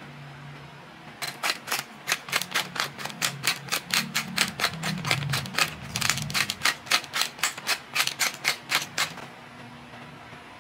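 Wooden salt mill being twisted to grind salt, a rapid run of dry grinding clicks, about four to five a second, that starts about a second in and stops about a second before the end.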